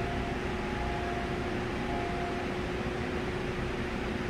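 Steady hum and hiss from an old Seoul Subway Line 5 electric train standing at the platform behind closed screen doors, with a steady faint tone in it.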